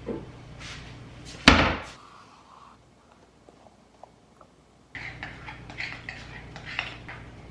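A wooden kitchen cabinet door shut with one sharp bang about a second and a half in. Near the end a spoon stirs frosting in a bowl with a run of small scrapes and clinks.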